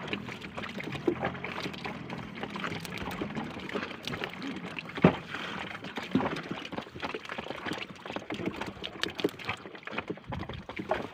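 Water sloshing and splashing around a small fishing boat, with scattered knocks and clicks and one sharper knock about five seconds in.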